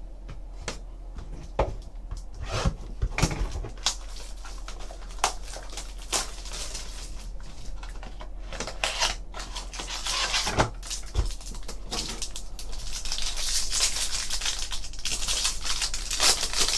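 Trading cards and their pack packaging being handled: scattered clicks and taps, with a stretch of rustling in the last few seconds as the next pack is opened.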